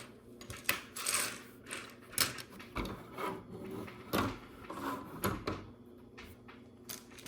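Small plastic LEGO pieces being rummaged through and pushed around on a tabletop: irregular clicks, clatters and rustles.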